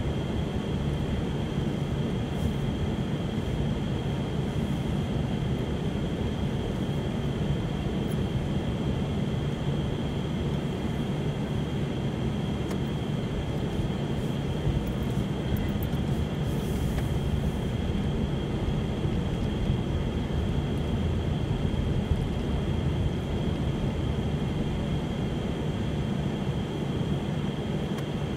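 Steady car cabin noise while driving: low engine and tyre rumble heard from inside the car, with a faint steady high-pitched whine.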